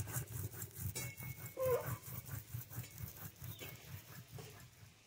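Stone roller grinding red chillies on a flat stone grinding slab (sil-batta), a rapid rhythmic scraping of stone on stone, about five strokes a second, fading near the end. A short animal call rises and falls about a second and a half in.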